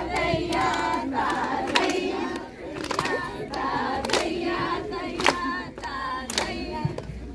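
A group of voices singing a song together, with hand claps now and then.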